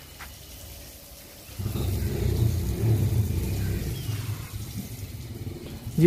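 A motor vehicle's engine rumble that swells about a second and a half in and fades away near the end, as of a vehicle passing.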